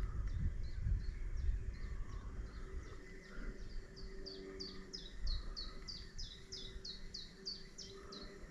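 A songbird singing a long run of quick, high, down-slurred notes, about three a second, growing louder over the last five seconds. A low rumble runs under it in the first few seconds.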